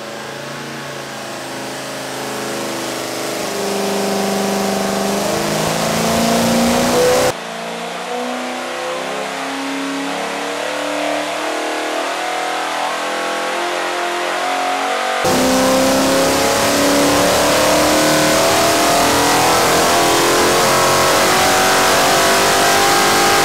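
396ci big-block Chevrolet marine engine pulling under load on an engine dyno, exhausting through IMCO Power Flow marine exhaust manifolds, its pitch climbing steadily as it sweeps up through the revs. The sound changes abruptly about a third of the way in and again past halfway, and the middle part is duller.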